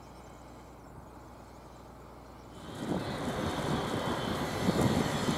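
VL80K two-section AC electric locomotive hauling a freight train, approaching: a faint steady background for the first couple of seconds, then a broad rumble and hiss that swells up about halfway in.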